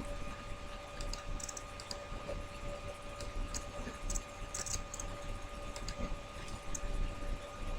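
Faint, scattered light clicks over a steady low electrical hum.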